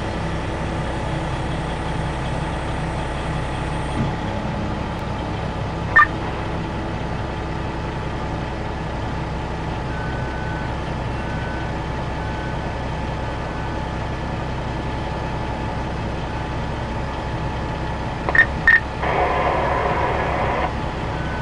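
Diesel engines of a Caterpillar wheel loader and articulated dump truck running steadily during loading, with a single metallic knock about six seconds in. Around the middle a reversing alarm sounds four short beeps about a second apart. Near the end come two sharp beeps, then a louder rushing noise.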